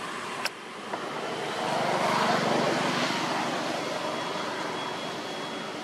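A motor vehicle passing: engine and road noise swell over about a second and a half, peak, then fade slowly. A sharp click sounds about half a second in.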